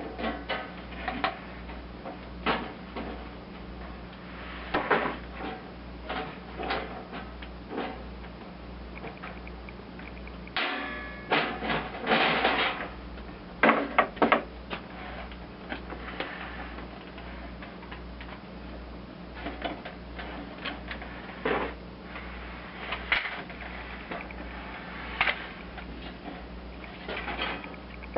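Hand-held sheet-metal punch working a piece of tin: scattered sharp clicks and knocks as the punch is set and squeezed and the tin is handled, busiest about halfway through, over a steady low hum.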